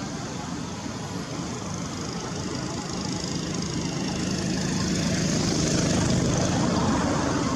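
Engine of a passing motor vehicle: a steady hum that grows louder over a few seconds and eases off near the end.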